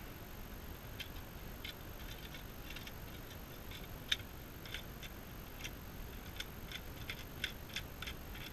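Faint, irregular small clicks and scrapes of a knife working dry, fibrous bark and wood by hand, roughly one or two a second, with one sharper click about four seconds in.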